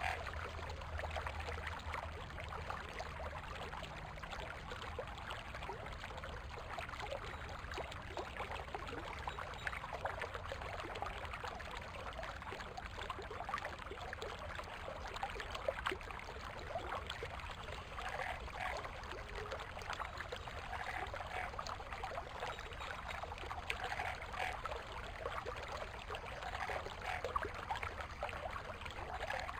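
Stream water flowing and splashing over stones, a steady rushing trickle.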